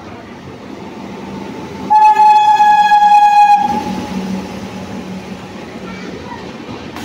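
Electric locomotive horn sounding one loud, steady blast of about a second and a half as the train runs through the station. The passenger coaches then rumble past on the rails.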